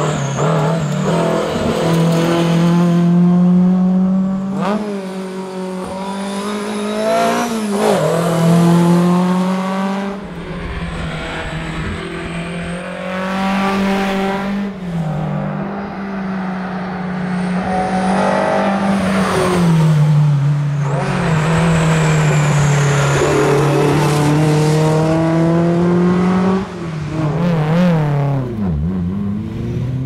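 Alfa Romeo GTV 2000's twin-cam four-cylinder engine revving hard at racing speed, the pitch climbing and dropping back again and again with gear changes and lifts. Near the end the pitch dips sharply as the car goes past close by.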